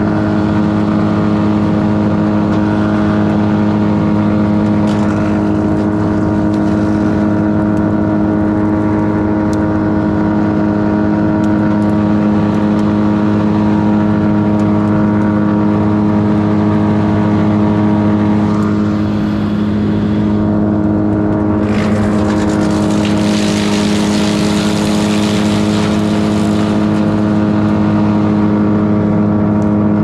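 Wood chipper engine running steadily at working speed. About two-thirds of the way through, a loud rushing, crunching noise lasts for several seconds as branches are fed through and chipped.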